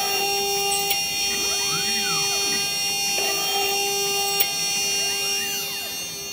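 Desktop CNC router running a hole-drilling cycle in a burner plate: its 800 W water-cooled spindle whines steadily, and a few times the stepper motors give a tone that rises then falls in pitch as the machine moves from one hole to the next.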